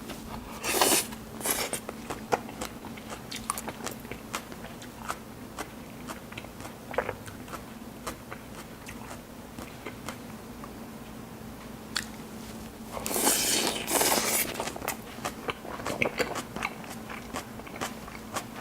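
Biting and chewing a crunchy strawberry and sedum salad, with small clicks throughout and two louder bursts of crunching, one about a second in and one about two-thirds of the way through.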